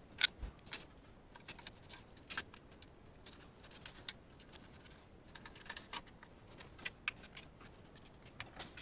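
Scattered light clicks and taps of a Mercedes W126 plastic speedometer housing being handled and fitted back together, the sharpest click just after the start.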